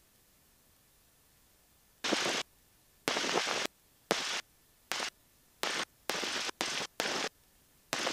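Aircraft headset intercom's voice-activated squelch opening and shutting in about nine short bursts of engine and cockpit hiss, each switched on and off abruptly, with near silence in between.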